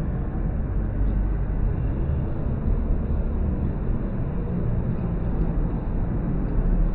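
Wind buffeting a phone's microphone on a moving swing ride: a steady low rumbling rush with no break.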